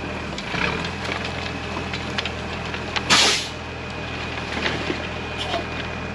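Cummins 6BT inline-six diesel in an Oshkosh dump truck running steadily. A short, loud burst of hissing air comes about three seconds in, and the engine note shifts soon after.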